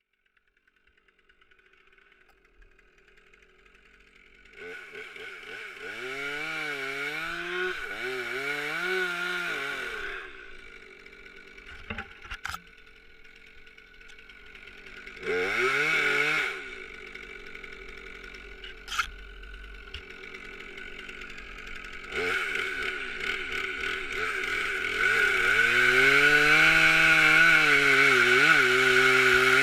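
Stihl MS 362 R C-M two-stroke chainsaw idling, then revved in repeated rising-and-falling throttle blips, given one short burst around the middle, and held at high revs through the last third. A couple of sharp knocks fall between the revs.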